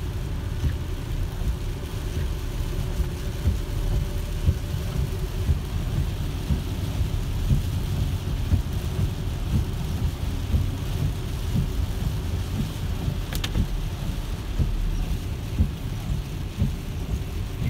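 Heavy rain on the car and tyres on a wet highway, heard from inside a Tesla's cabin: a steady low rumble with frequent irregular knocks and a fainter hiss above it. A single sharp click comes about thirteen seconds in.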